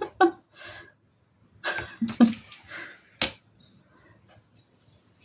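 Small hand noises from handling a white glue bottle with a needle-tip applicator: one sharp click a little after three seconds, followed by faint, tiny high ticks. A breath and a brief murmur from the crafter come before the click.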